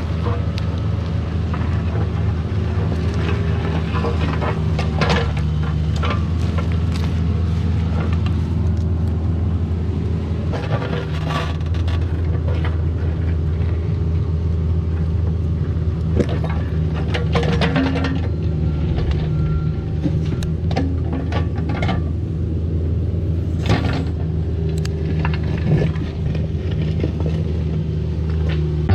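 CAT 304 mini excavator's diesel engine running at a steady pitch while digging, with scattered scrapes and knocks of the bucket and tools in dirt and rock as the trench around a buried conduit is cleared.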